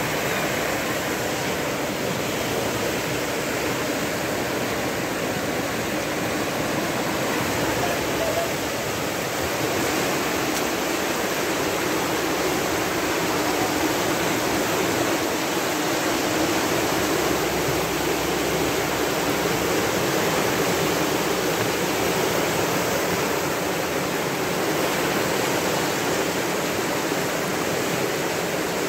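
Muddy floodwater rushing and churning down a flooded river channel: a steady, unbroken noise of fast-moving water.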